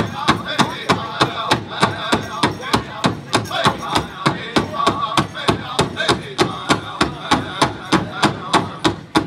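Powwow drum group playing a fancy shawl song: a big drum struck in a steady, fast beat of about three strokes a second, with the group's voices singing over it.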